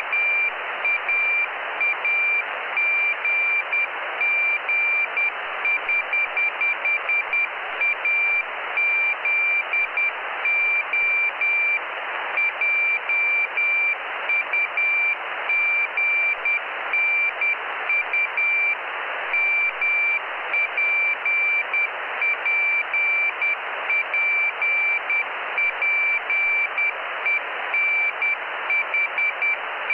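Jugnu satellite's CW telemetry beacon received by radio: a single high beep tone keyed on and off in Morse code over steady receiver hiss.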